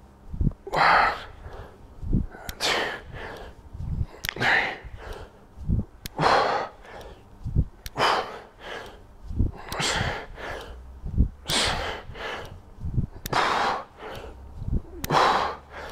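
A man breathing hard in time with kettlebell Romanian deadlift reps: a forceful, noisy breath every one and a half to two seconds, about ten in all. Short, soft low knocks fall between the breaths.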